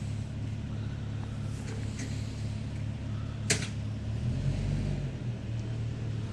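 Vintage Hunter FL20 box fan motor humming steadily, with one sharp click about three and a half seconds in.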